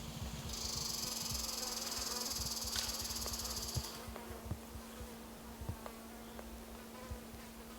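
An insect's steady, high-pitched buzzing trill that starts about half a second in and cuts off abruptly about four seconds in. It sits over a faint constant low hum and a few soft knocks.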